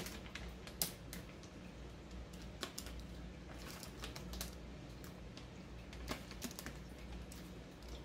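A utility knife's blade picking and scraping at thick vacuum-pack plastic wrap, giving faint, irregular clicks and crackles, the sharpest about a second in.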